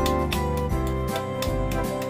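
Background music: an instrumental tune with a steady beat of about four strokes a second under sustained melodic notes.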